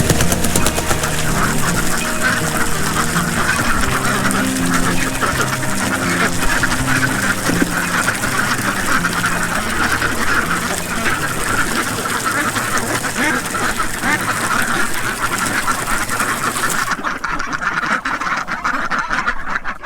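A flock of domestic ducks quacking, many calls at once in a continuous, busy chatter that dies away near the end.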